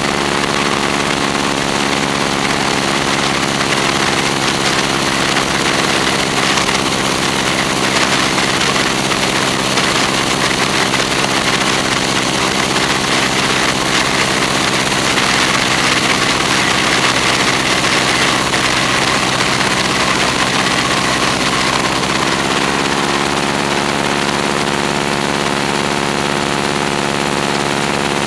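Stearman biplane's radial engine and propeller droning steadily in flight, with a heavy rush of wind over the wing-mounted microphone. The engine's pitch shifts slightly near the end.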